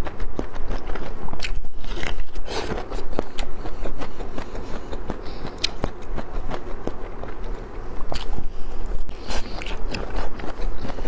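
Close-miked biting and chewing of a boiled bamboo shoot: a steady run of short, crisp mouth clicks and crunches, with two denser spells of bites.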